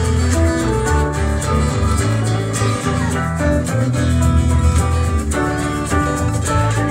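Small band playing an instrumental passage live: strummed acoustic guitar, a second guitar and keyboard over a steady low line.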